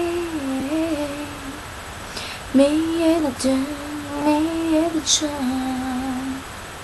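A woman humming a slow tune in long held notes that step and glide between pitches. She stops shortly before the end.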